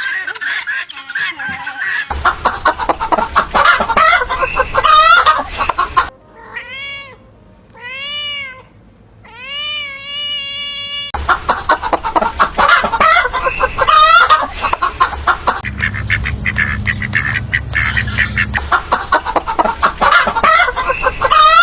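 Hens clucking and chattering continuously. In the middle the clucking gives way to a kitten meowing three times, the third meow longer, and then the clucking resumes. A low hum runs under the clucking for a few seconds near the end.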